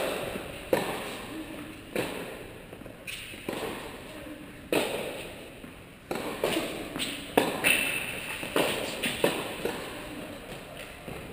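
A tennis rally: sharp hits of racquets on the ball and ball bounces, every second or so and coming faster after about six seconds, each echoing through a large indoor tennis hall.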